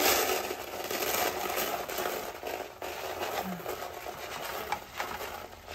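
Chicken feed grains poured from a cut-off plastic bottle into a plastic bucket feeder: a dense rattling hiss of countless small grains striking the bucket and each other, loudest as the pour begins.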